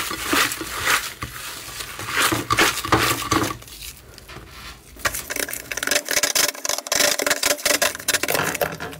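Hands squeezing and kneading slime, a dense run of wet crackles and pops. About five seconds in the sound changes to sharper, quicker crackling as a different slime is pressed flat.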